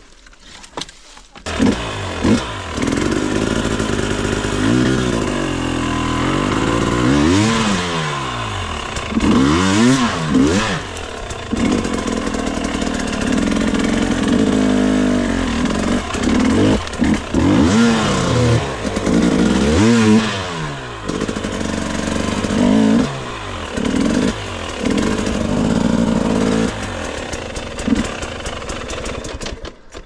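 Enduro motorcycle engine being revved up and down again and again as the bike is ridden, its pitch rising and falling in quick sweeps, after a brief quieter moment at the start.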